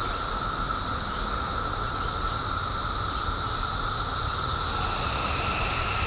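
Chorus of Brood X periodical cicadas: a steady, high droning whine. A higher hiss joins near the end.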